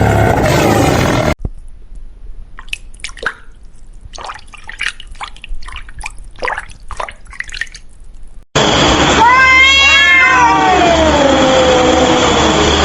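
A cat meowing: one long drawn-out meow that rises and then slides down in pitch, starting about two-thirds of the way in. Before it comes a quiet stretch of scattered small clicks and rustles, and at the very start about a second of loud noise that cuts off abruptly.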